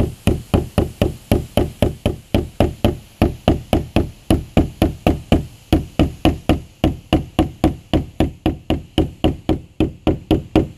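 Hammer tapping staples down flush into the convertible top's bow, quick even taps about four a second that stop suddenly at the end.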